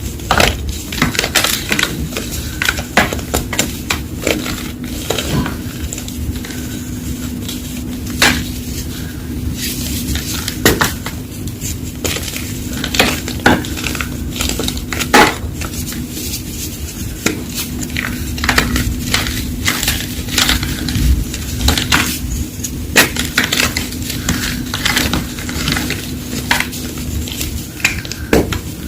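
Reform gym chalk crunching and crumbling as it is crushed: an irregular run of sharp crackles and snaps, over a faint steady low hum.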